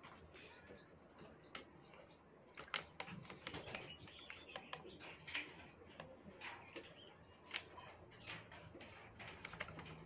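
Faint bird chirps, a quick run of short calls in the first couple of seconds, over scattered light clicks and taps.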